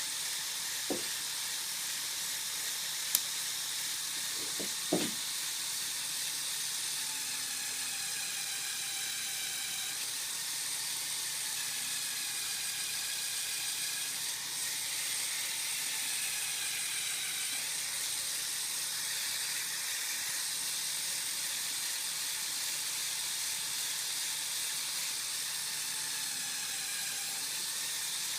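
Lego Technic four-wheel-drive drivetrain running: a steady high whir from the electric motor and gears, its pitch wavering for a while in the middle. A few sharp clicks come in the first five seconds.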